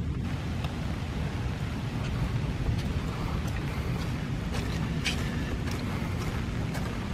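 Wind rumbling steadily on the microphone, with a hiss of falling rain and a few scattered faint ticks.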